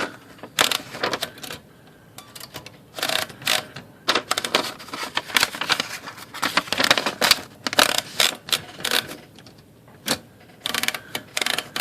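Royal manual typewriter's platen being turned by hand in repeated bursts, its ratchet clicking rapidly, to test whether the freshly flushed and lubricated paper bail rollers now turn.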